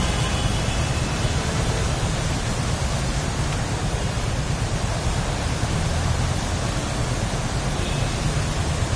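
Steady rush of floodwater across a road as cars, a van and motorbikes drive through it, over a low rumble.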